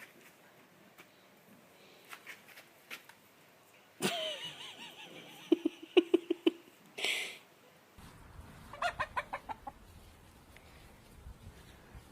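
Poultry clucking and squawking. There is a sudden call about four seconds in, a quick string of clucks around six seconds, a short harsh squawk just after, and a run of about eight rapid clucks near nine seconds.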